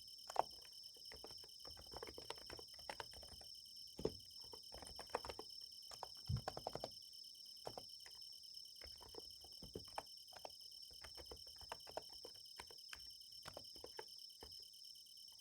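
Irregular typing on a Niz Plum x108 electrostatic capacitive keyboard, soft keystroke clicks in uneven runs. Under it, a steady high chorus of night insects chirring.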